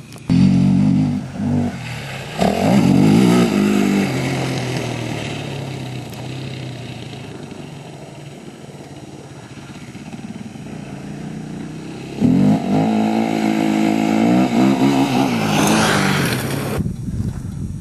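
Yamaha sport quad engines revving hard as they race past close by, then fading into the distance. The engine noise comes back loud for another pass about twelve seconds in, revs up near the end, and cuts off suddenly.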